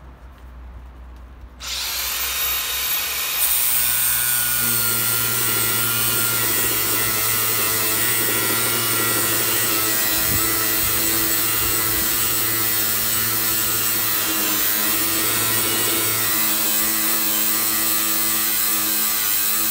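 Makita cordless angle grinder fitted with a flap disc starting up about two seconds in, its whine rising as the motor spins up, then grinding steadily against a metal plate to strip rust from it.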